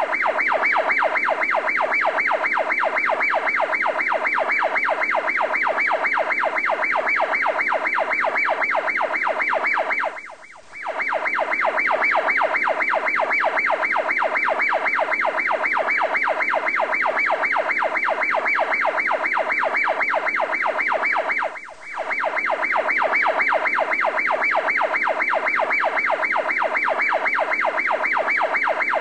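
Electronic siren-like tone pulsing rapidly and evenly, several pulses a second, in a steady loop that breaks off briefly twice.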